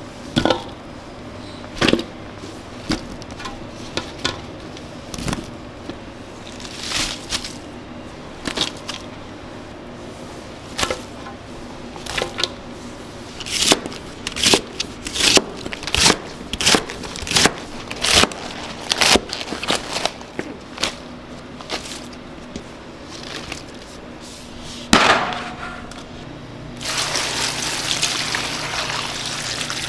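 A kitchen knife chops green onion stalks on a plastic cutting board, with a quick run of sharp strikes through the middle and scattered single knocks before it. Near the end, water pours in a steady stream into a pot of chopped vegetables.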